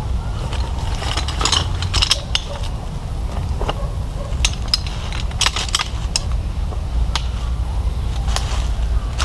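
Irregular sharp clicks and clinks of small hard objects being handled, over a steady low rumble.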